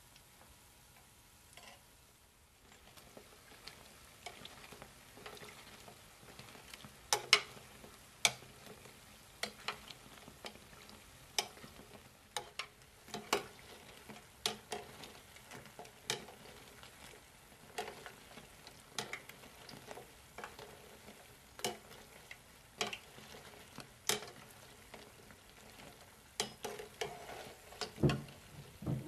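Potato-and-parsley dough fritters deep-frying in vegetable oil with a steady sizzle, which grows louder about two and a half seconds in. A metal spoon and skimmer click against the pot about once a second as the fritters are turned, with a louder knock near the end as a spoonful is lifted out.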